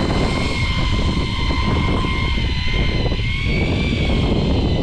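A motor running steadily: a high, even whine over a continuous low rumble.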